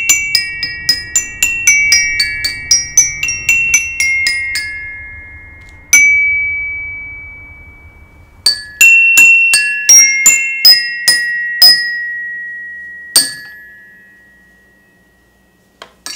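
Intro jingle played on a high, bell-toned tuned percussion instrument: a quick run of struck ringing notes, about four a second, then one note about six seconds in left to ring. A second run follows, ending on a last note about thirteen seconds in that rings out and fades away.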